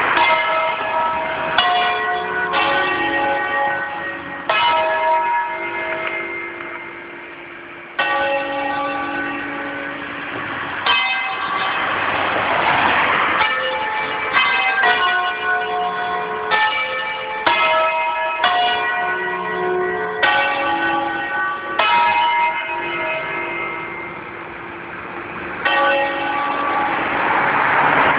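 Several church bells ringing together in a peal, their strikes coming at an uneven, overlapping rhythm, each note ringing on after it is struck. A broad rushing noise swells under the bells twice, about halfway through and near the end.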